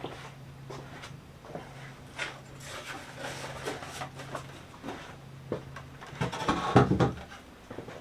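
Light knocks, clicks and clatter of wood and small hardware being handled, busiest about six to seven seconds in, over a steady low hum.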